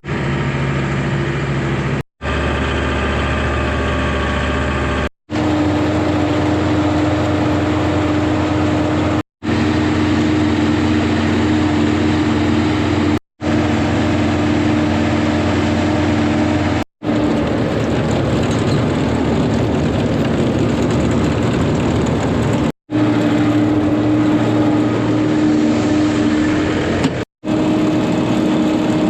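Tractor engine and silage bagger running steadily under load while packing a silage bag, with a steady hum over the machine noise. It comes in short stretches broken by about seven brief dropouts.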